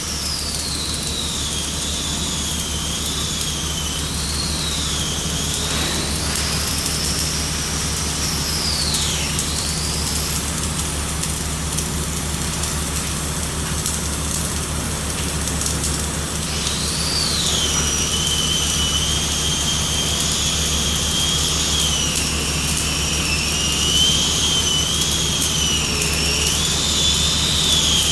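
Semi-automatic (wire-feed) arc welding on steel plate: the arc crackles and sizzles without a break over a steady low hum, with a high whine that wavers up and down in pitch.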